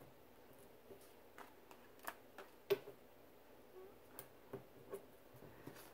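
Faint, irregular little clicks and ticks of fingers and fingernails handling and picking at a small piece of card on a cutting mat, with the loudest tick a little before halfway.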